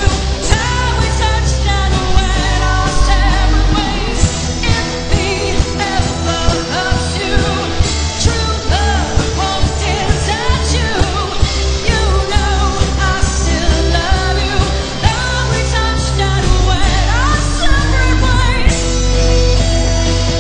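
Live band playing a pop-rock song, a lead vocal over a steady drum beat.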